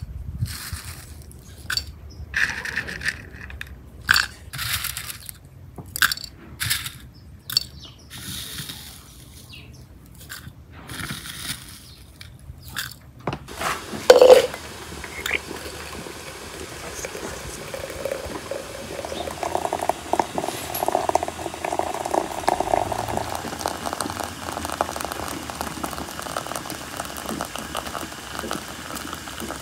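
Dried herbs and flowers spooned into a glass teapot, with scattered clinks and rustles of the spoon against the glass. About halfway through, a sharp clink, then a steady stream of water pouring from a samovar tap into the glass teapot over the herbs.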